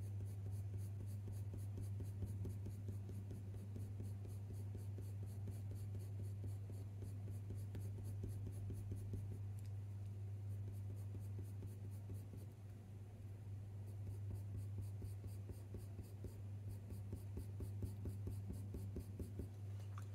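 Sharp Faber-Castell Polychromos coloured pencil scratching on hot-press watercolour paper in quick, short, repeated flicking strokes as fur is drawn in, easing off briefly about two-thirds through. A steady low hum runs underneath.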